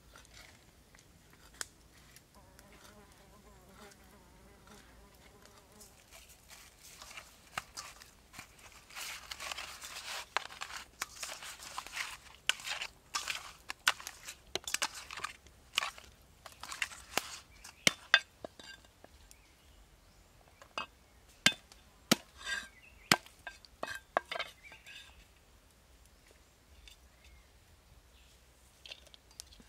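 An insect buzzes briefly near the start. Then comes a long grainy scrubbing as hands rub whole scaled fish with coarse salt in an aluminium bowl. After that there is a string of sharp, separate knocks.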